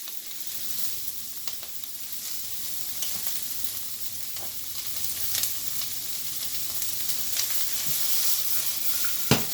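Chinese broccoli stems, garlic and ginger sizzling steadily in hot oil in a wok, stir-fried, with scattered clicks from stirring and a louder knock near the end.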